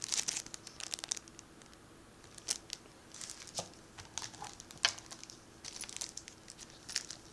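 Thin clear plastic wrapping crinkling and rustling in irregular crackles as it is handled and pulled off an acrylic standee, busiest in the first second.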